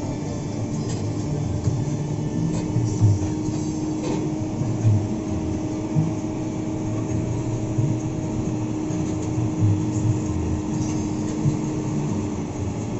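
Isuzu NQR medium bus heard from inside while on the move: its diesel engine running steadily under road noise, with a few short knocks from the body going over bumps.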